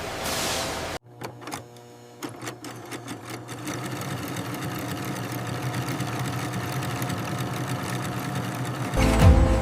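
Industrial sewing machine stitching: after a second of hiss it starts with a few rapid clicks, then runs in a steady fast whirr that grows louder.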